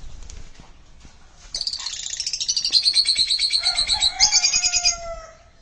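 Sun conure calling: a loud run of rapid, harsh, high-pitched notes starts about one and a half seconds in and lasts about three and a half seconds, gliding down slightly in pitch near the end.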